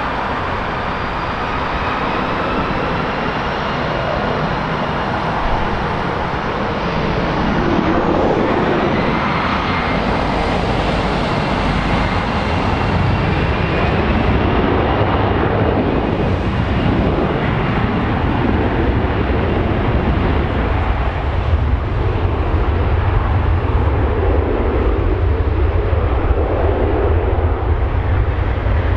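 Condor Airbus A321-211's twin CFM56 turbofan engines: a high whine over a steady rush, growing louder, with a deep low rumble building in the second half as the engines spool up toward takeoff thrust.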